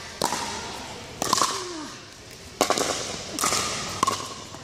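Pickleball rally: paddles hitting the plastic ball in a quick exchange of sharp pocks, about five in just over four seconds, spaced unevenly, with the ball's bounces on the court mixed in.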